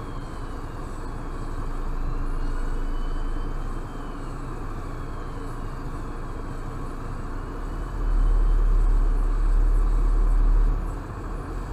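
Steady car-cabin rumble of a stationary car idling in traffic, with a deeper rumble swelling about eight seconds in for a couple of seconds. A faint emergency-vehicle siren glides up and down in the distance during the first half.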